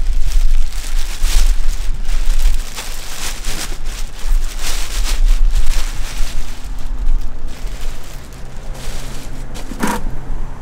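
Thick plastic bag crinkling and rustling in irregular bursts as it is pulled off a whole raw pig carcass and bunched up, with a brief squeak near the end.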